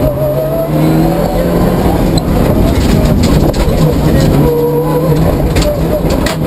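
Mitsubishi Lancer Evo IX rally car's turbocharged four-cylinder engine heard from inside the cabin, revving up and easing off through the gears at racing speed over loud road and cabin noise, with a few sharp knocks.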